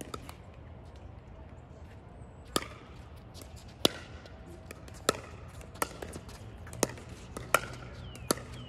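Pickleball rally: paddles strike the hard plastic ball back and forth, about seven sharp pops roughly a second apart.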